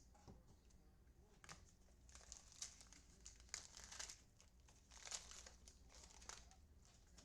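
Faint crinkling and tearing of a trading-card pack wrapper being opened, in several short rustling bursts.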